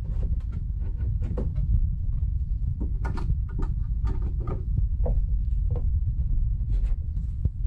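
Ice climbing tools clicking and knocking against the overhead beam as the picks are hooked, loaded and re-placed in a series of short sharp strikes, over a steady low rumble.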